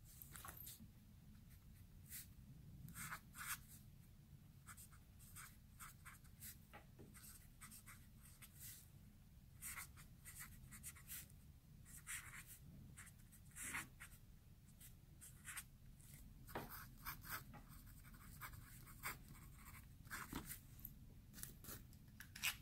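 Faint scratching of a felt-tip dry-erase marker, then a fountain pen nib, across notebook paper in short, irregular handwriting strokes.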